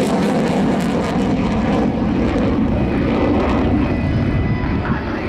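Mitsubishi F-2 fighter's single General Electric F110 turbofan heard in a flying display: loud, steady jet rumble. The higher hiss thins out after about two seconds while the low rumble carries on.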